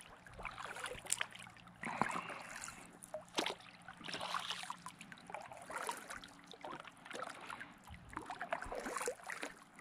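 Kayak paddle strokes through calm river water, a splash and swish about every two seconds with water trickling off the blade, and a couple of sharp knocks in between.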